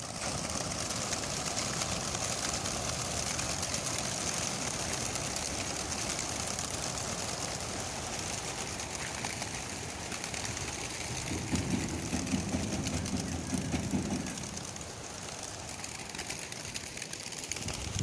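A large flock of racing pigeons bursting out of a transport truck's crates and taking off together, many wings flapping at once in a steady rushing whir that starts suddenly. A lower rumble joins in for a few seconds past the middle.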